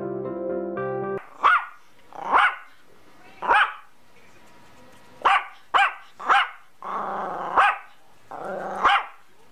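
Piano-like music cuts off about a second in. Then a Yorkshire terrier barks eight times in short, high yaps, with a growl leading into each of the last two barks.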